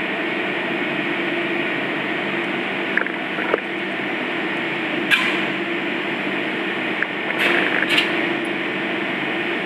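Steady machine hum of kitchen equipment, with a few light clicks and taps from plates and utensils being handled at the counter.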